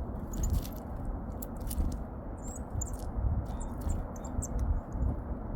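Small birds' short, high chirps and scattered sharp clicks, over a constant low rumble of wind on the microphone.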